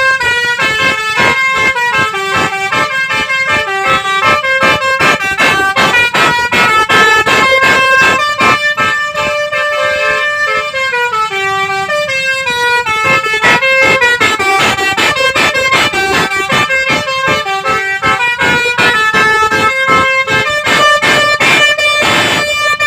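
Basuri telolet bus horn playing a long, unbroken melody. Its several horn tones jump quickly from note to note, with a falling run of notes partway through and a short burst of hiss near the end.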